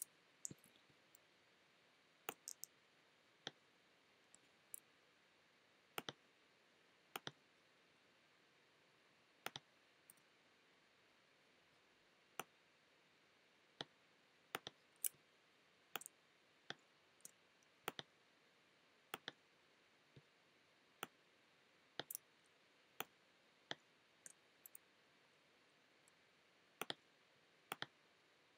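Computer mouse buttons clicking at irregular intervals, sharp single clicks and quick pairs of clicks, over faint room hiss.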